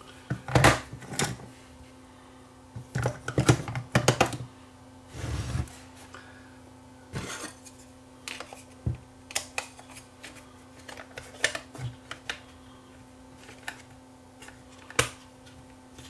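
Irregular plastic and metal clicks and knocks as D-cell batteries are loaded into the battery compartment of a Sony TC-D5 Pro II cassette recorder and the compartment cover is fitted and latched, with a short scraping rub about five seconds in.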